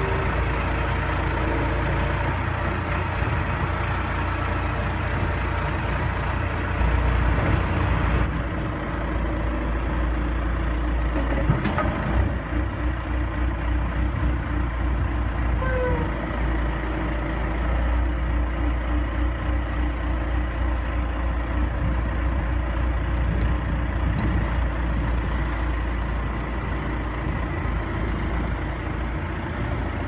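John Deere 410E loader/backhoe's 4045T turbocharged four-cylinder diesel running steadily while the loader and backhoe hydraulics are worked, briefly louder around seven seconds in.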